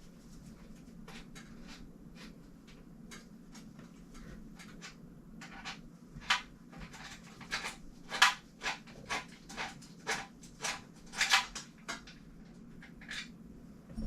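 Irregular clicks, taps and clinks of small bike parts and tools being handled, a few at first and then a busier run with the loudest knocks around the middle and near the end, over a steady low hum.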